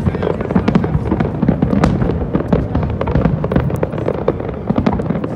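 Aerial fireworks barrage: many shells bursting in quick succession, a continuous string of overlapping bangs and crackles several times a second.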